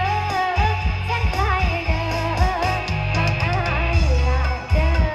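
Karaoke song with a singer's voice over the backing track, played loud through a large outdoor PA stack with 18-inch BV bass cabinets. The deep bass is heavy and dominant under the singing.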